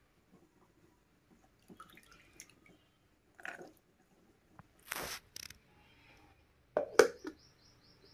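Wet blanched spinach leaves and green peas being dropped into a bowl of cool water, giving scattered soft splashes and drips. A sharp knock comes near the end.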